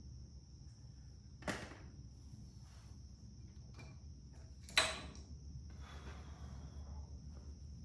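Small metal tool clicking and tapping against the governor springs and linkage inside a tractor's gear case, as the springs are worked into place with a pick. There are two sharp clicks about three seconds apart, the second louder, with a few fainter ticks between them.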